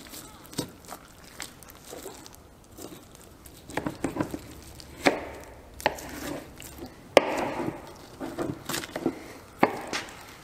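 Butchering knife cutting meat off a deer's ribs on a plastic cutting board: irregular sharp clicks and knocks of the blade, with the rustle of meat being pulled and handled between them.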